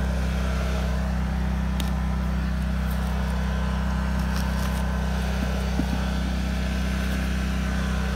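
Portable generator engine running steadily, a constant low drone, as it supplies power to an oxalic acid vaporizer rig along with an air compressor.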